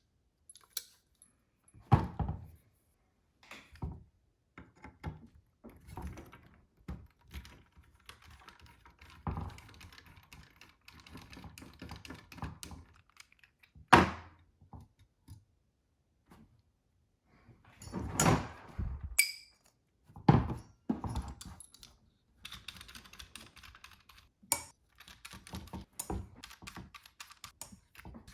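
Small metal parts and tools being handled on a workbench: scattered clicks and knocks, a few loud thunks, and stretches of dense clicking and scraping.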